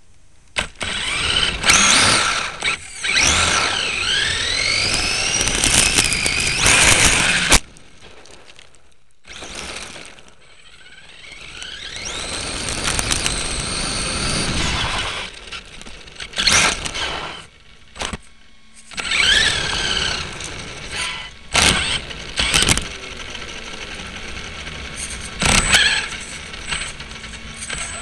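A radio-controlled truck's motor and drivetrain, heard from a camera on the truck's front: several runs of driving with a whine that rises and falls in pitch as it speeds up and slows down, mixed with tyre noise on pavement. Sharp knocks come now and then between the runs.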